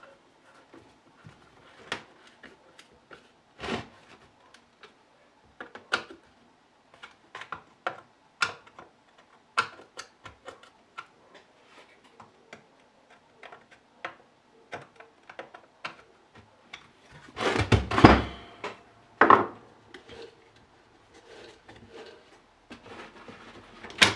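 Hand work on the concrete vibrator and its parts: scattered clicks, knocks and light scrapes of tools and metal pieces being handled, with a louder rustling clatter about three-quarters of the way through. The motor is not running.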